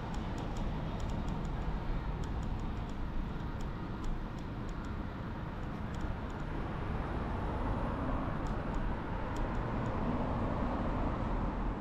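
Steady low urban street ambience, like distant traffic rumble, with faint scattered high-pitched ticks throughout.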